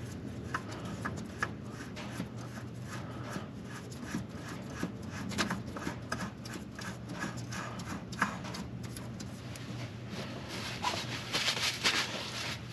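Gloved hands spinning a new oil filter onto its threaded engine mount by hand: scattered small clicks and rubbing of glove on the metal canister, louder and busier near the end as it is snugged down. A steady low hum runs underneath.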